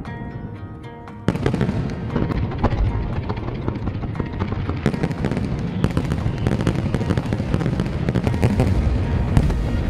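Soft background music, then about a second in a fireworks display starts: aerial shells bursting in quick, dense succession with many sharp bangs and crackles.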